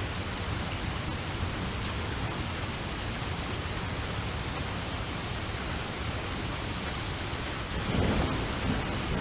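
Steady, even rain, with a low rumble of thunder swelling up about eight seconds in.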